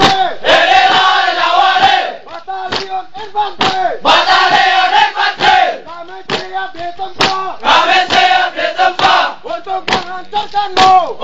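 A group of soldiers shouting an Indonesian military yel-yel (unit chant) in unison. The sung-shouted lines alternate with rhythmic hand claps.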